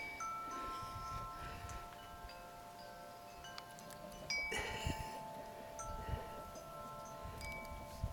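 Wind chimes ringing: several clear tones of different pitches start one after another and each rings on for a second or more, overlapping. A brief louder noisy rush comes about halfway through.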